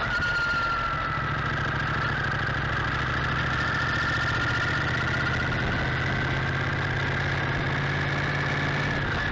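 Motorcycle engine running steadily while riding, with a high whine above it that slowly drifts up and down in pitch.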